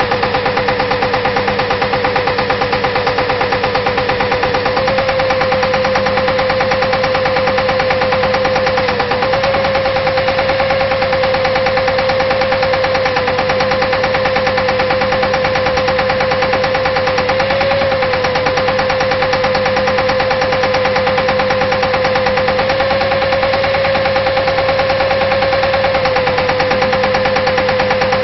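Water-well drilling rig running, its pneumatic hammer pounding in a rapid, even rattle over a steady mechanical drone.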